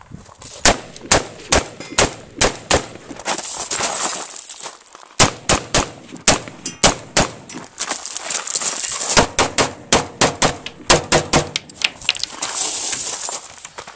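A rapid string of close gunshots from a Beretta PX4 9mm pistol and a Rock River Arms LAR-15 AR-15 rifle, about two to three shots a second, with a short lull about three to five seconds in.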